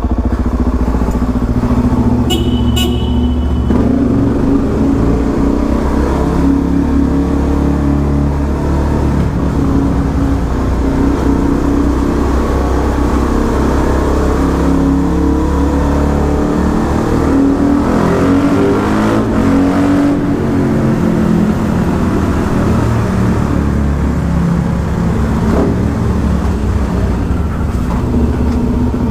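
Suzuki DR-Z400SM's single-cylinder four-stroke engine running steadily under way inside a concrete tunnel, its pitch wavering a little.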